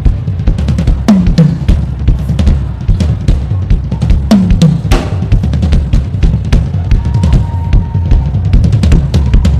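Live worship band playing without singing, led by a busy drum kit with bass drum and snare hits over a heavy bass line. Two falling low swoops come about a second in and again about four seconds in.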